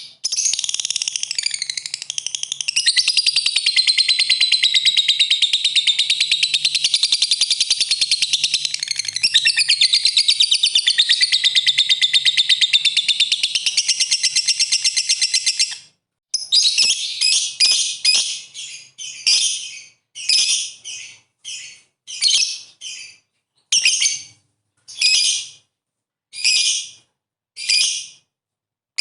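Lovebird 'ngekek' song: a long, rapid, unbroken high-pitched chattering trill lasting about sixteen seconds, then breaking into short separate chirp bursts roughly once a second.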